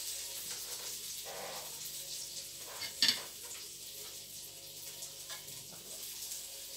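Food sizzling steadily on a grill, with a sharp click about three seconds in.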